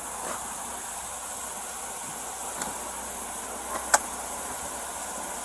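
Steady hissing background noise, with one sharp click about four seconds in.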